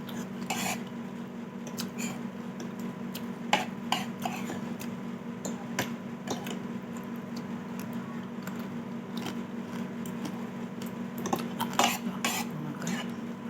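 A spoon clinking against a bowl at irregular intervals while soup is eaten, with a few louder clinks about three and a half seconds in and again near the end. A steady low hum runs underneath.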